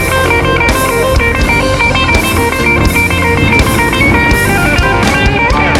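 Rock music with electric guitar and drums: an instrumental passage with a melodic guitar line and a steady beat.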